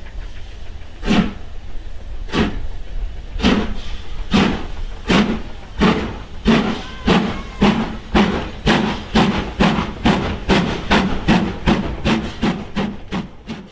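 Steam locomotive exhaust chuffing as it pulls away, the beats over a second apart at first and quickening steadily to about three a second, with a steam hiss between them. The sound cuts off suddenly at the end.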